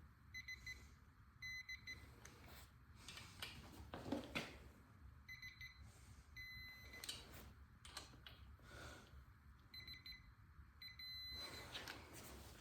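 Faint electronic beeping from a digital torque wrench as the engine-block bolts are re-checked, each group of short, high beeps sounding as a bolt reaches its set torque. There are about half a dozen groups, with the longest string of beeps near the end, and faint clicks of the wrench between them.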